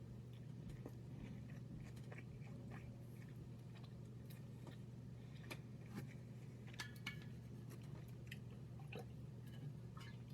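Faint chewing of a crispy chicken wrap: soft crunches and wet mouth clicks, scattered irregularly, over a steady low room hum.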